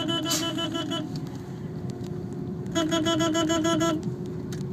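Small car's engine running slowly in first gear, heard inside the cabin, with a buzzy, rapidly pulsing tone sounding twice, about a second each time, near the start and again past halfway.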